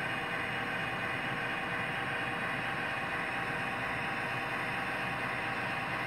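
Steady diesel engine sound from the MTH Proto-Sound 2 sound system of an American Flyer Alco model diesel, together with the locomotive crawling slowly along the track.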